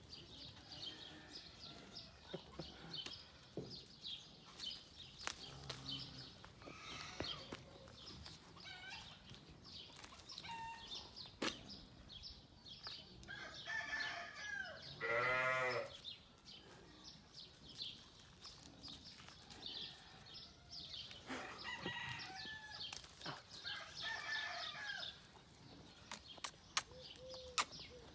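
Chickens clucking and calling, with one loud, drawn-out call lasting about a second halfway through, and scattered light clicks.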